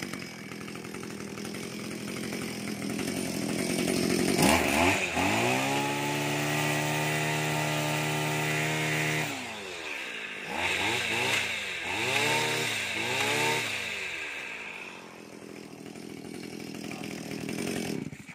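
Robin NB231 brush cutter's small two-stroke engine idling, then revved up about four seconds in and held at high speed for about five seconds. It drops back, takes three short blips of the throttle, settles to idle and cuts off at the end.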